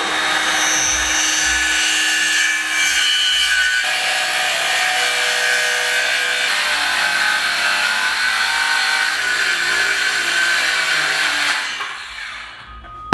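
Circular saw running loud and steady as it cuts through wood, its pitch shifting about four seconds in, then switched off and winding down near the end.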